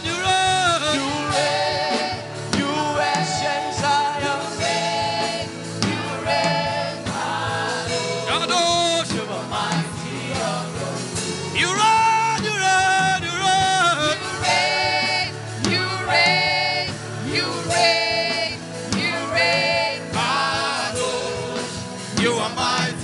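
Gospel worship music: sung voices holding long, gliding notes over instrumental accompaniment.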